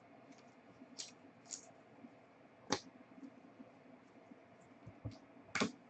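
Faint, scattered clicks and light rustles of trading cards being handled and sorted, about five or six short ones, with the sharpest near the middle and near the end.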